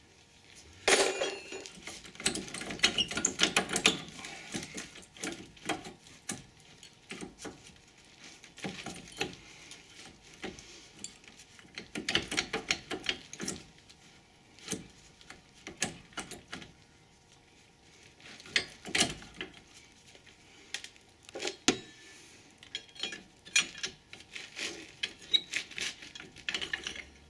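Irregular metallic clinks, knocks and rattles of a front brake caliper being worked loose by hand, the metal caliper scraping and knocking against its bracket and rotor, in clusters with pauses between, the busiest stretch about a second in.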